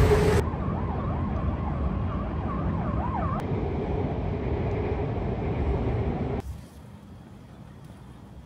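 City traffic noise with a siren wavering up and down for a few seconds. About six and a half seconds in, it drops to a much quieter background.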